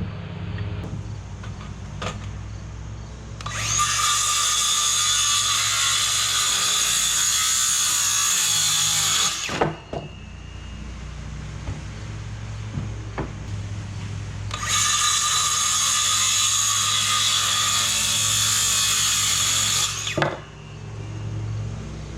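Power tool running at full speed twice in long, steady runs of about six and five seconds, each ending with a sharp knock, with a steady low hum underneath.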